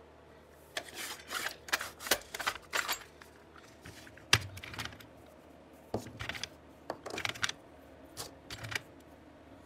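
Small hard parts (knobs, rubber feet, little bearings) clicking and clattering in a plastic parts drawer as a hand rummages through them, in uneven runs of clicks with a few heavier knocks, the loudest about four seconds in.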